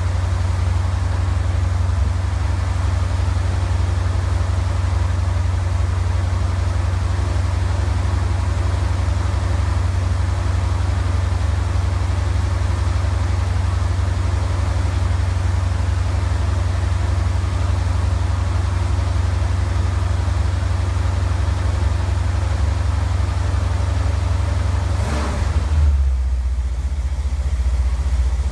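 Chevy 350 small-block V8 in a 1985 C10 pickup idling with a steady low rumble. About 25 seconds in there is a brief noise, after which the idle note settles a little lower.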